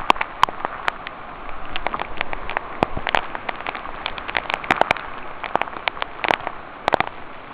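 Footsteps crunching through storm debris of fallen branches and leaves: scattered, irregular crackles and snaps over a steady hiss.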